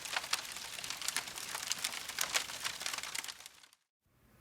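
Dense crackling and crinkling, thick with sharp snaps, that cuts off abruptly near the end, leaving faint room tone.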